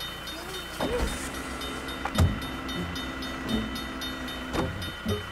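Freight train rolling past a level crossing: a steady low rumble with a few separate knocks.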